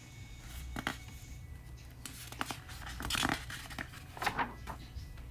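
A paperback picture book's page being turned by hand: several short papery rustles and swishes, the loudest about three seconds in.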